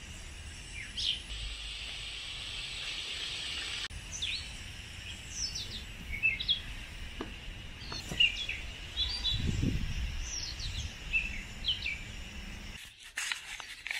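Several birds chirp and sing over the steady hiss of water spraying from a garden hose. A few knocks come near the end.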